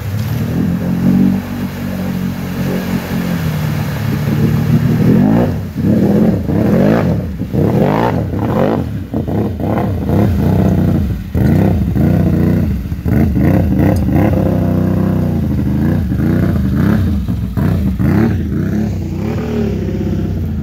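ATV engine revving hard in repeated bursts, rising and falling over and over as the quad pushes through deep, sloppy clay mud and water. It runs more steadily for the first few seconds before the throttle starts working on and off.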